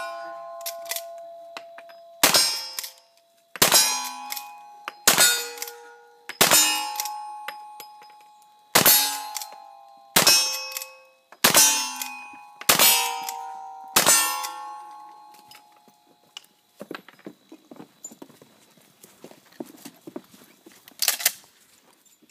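Brass-framed lever-action rifle fired about nine times at a steady pace, each shot followed by the ring of a struck steel target, the rings at different pitches from different plates. Near the end, after a pause with faint clatter, a shotgun shot.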